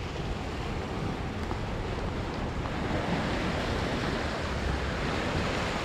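Sea surf washing against a rocky shore, a steady rush that swells a little after about three seconds, with wind buffeting the microphone.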